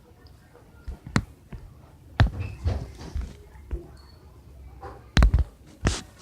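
Four sharp knocks and thumps, with deep low bumps and softer scraping between them.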